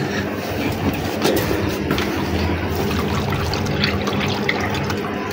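Water poured from a plastic bowl onto potting soil in a planter: a steady splashing pour into freshly repotted earth.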